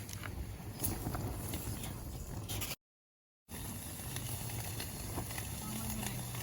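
Bacon sizzling and popping in a small stainless steel frying pan over a penny stove burning lighter fluid, a steady hiss with scattered small pops. The sound drops out to dead silence for under a second about three seconds in.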